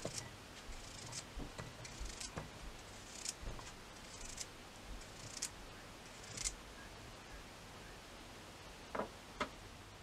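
Knife cutting through the crisp crust of a toasted cheese sandwich: short crunching, scraping strokes about once a second, then two soft knocks near the end.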